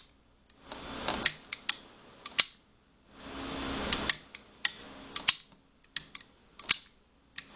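Sharp metal clicks and clacks of a Zastava M77 rifle's trigger and hammer parts being worked and fitted together, with rustling handling noise between the clicks.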